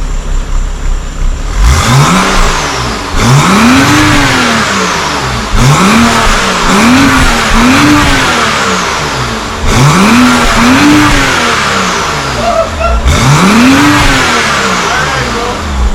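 BMW 535i's N55 turbocharged straight-six, fitted with a catless downpipe, idling and then revved in about eight quick blips, each rising and falling in pitch, before settling back to idle near the end.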